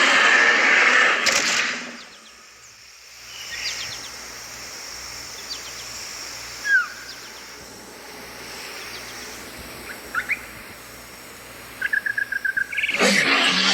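A loud noisy sound fades out about two seconds in, leaving quiet outdoor ambience with scattered short bird chirps. Near the end comes a quick run of chirps, and then the loud noise starts again.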